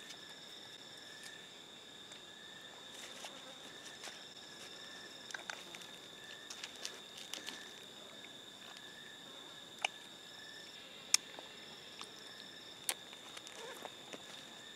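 Forest insects droning on a steady high tone, with a lower insect call pulsing on and off in short dashes. Scattered sharp clicks and snaps sound over it, the loudest about eleven seconds in.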